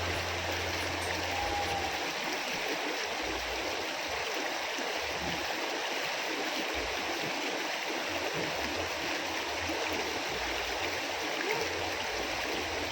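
Small river flowing, a steady rushing of water.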